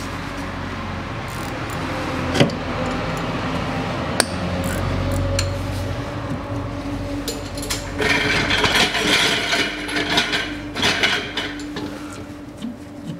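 Metal 5 mm hex key clicking and scraping in the filler plug of a Haldex coupling as the plug is worked loose. There are two sharp clicks in the first half, then a few seconds of rattling and scraping, over a steady hum.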